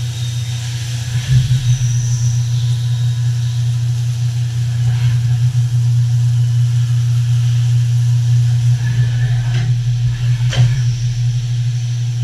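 Fadal VMC4020FX CNC vertical mill running under power: a steady low hum with a few sharp clicks in the second half.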